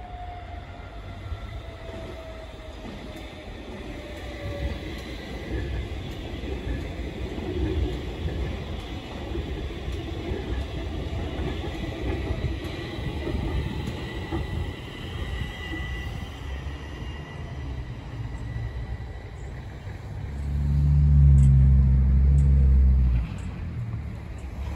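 Stockholm metro train running past on the surface track: a steady rumble of wheels on rail, with a whine falling in pitch over the first few seconds and a thin, steady high squeal through the middle. About twenty seconds in, a much louder low rumble lasts for about three seconds.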